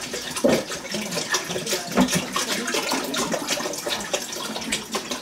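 Water running from a kitchen tap into a sink and splashing irregularly, with small knocks and clatters mixed in.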